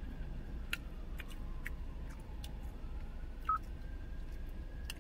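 Steady low hum inside a car, with a faint whine slowly sliding in pitch, a few soft clicks, and one short beep-like blip about three and a half seconds in.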